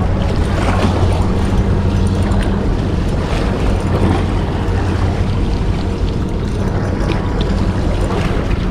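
Steady wind rush on the microphone over sea water washing against shore rocks, with a constant low hum underneath.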